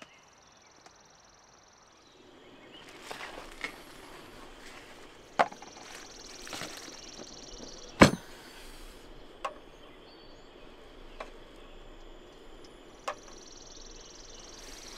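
Camp kitchen gear being handled to make coffee: a few sharp clicks and knocks, the loudest about halfway through, over a steady low hiss that starts about two seconds in.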